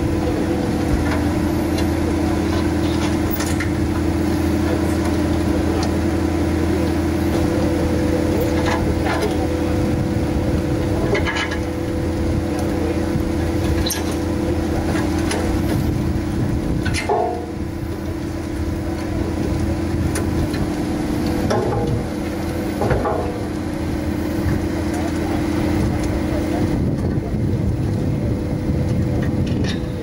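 Komatsu SK820 skid steer's diesel engine running steadily under hydraulic load, driving a rotating screening bucket that sifts soil through its mesh drum. Occasional sharp knocks sound over the drone, and one of its tones drops away near the end.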